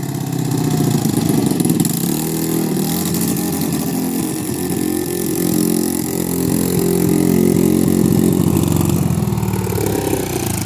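ATV engine running steadily, its pitch shifting as the throttle changes, with a brief rise and fall in pitch near the end.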